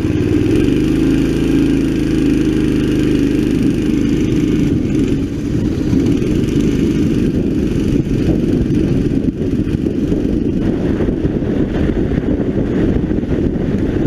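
Onboard sound of a 9 hp racing kart's engine pulling hard out of a slow hairpin and accelerating onto the straight. As speed builds, wind buffeting on the microphone increasingly covers the engine.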